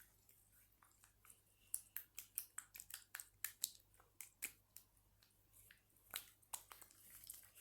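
Faint, quick wet clicks and squelches of yellow nose putty slime being squeezed and worked in the hands, several a second in an irregular run that thins out toward the end.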